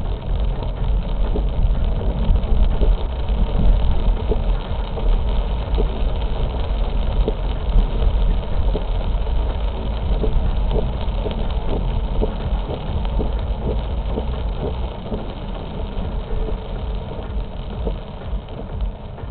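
A car driving on a wet road, heard from inside the cabin: a steady low engine and road rumble with many short ticks over it. The rumble eases over the last few seconds.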